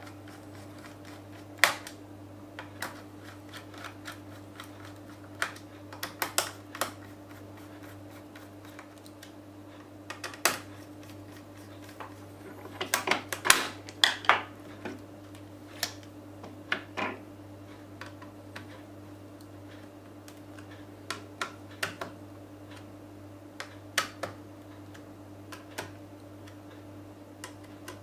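Scattered small clicks and taps of a screwdriver and screws as a laptop's CPU heatsink is screwed back onto the motherboard, with a denser clatter of tools being handled about halfway through. A steady low hum runs underneath.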